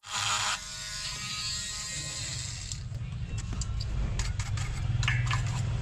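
A small electric motor starts suddenly, with a loud hiss for about half a second, then runs steadily with a low hum, light scraping and scattered clicks, getting louder near the end.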